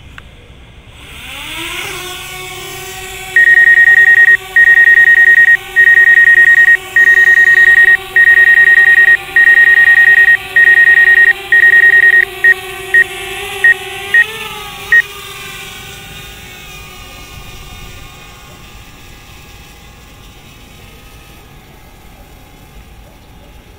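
DJI Mavic Air quadcopter's propellers spinning up for takeoff: a rising whine that settles into a steady hum, wavers briefly and then fades as the drone climbs away. Over it a loud, high-pitched beep repeats about once a second for some twelve seconds, and the last few beeps are short and quick.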